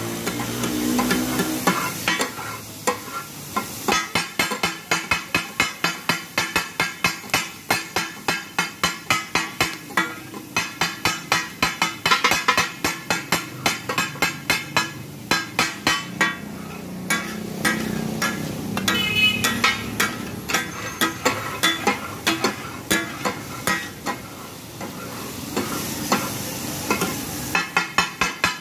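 Metal spatula blades chopping and scraping meat on a flat steel griddle, a fast, steady clatter of about two to three clanks a second: the takatak chopping of mutton kidney, liver, brain and heart as it fries. Frying sizzle runs underneath and is heard alone in short lulls near the start, around the middle and near the end.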